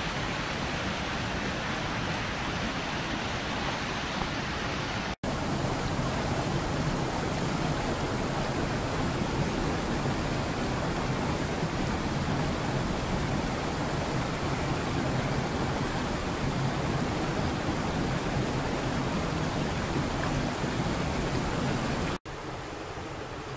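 Mountain river rushing over boulders and small rapids: a steady, even hiss of flowing water. It cuts out abruptly twice, about five seconds in and near the end, and comes back a little quieter after the second cut.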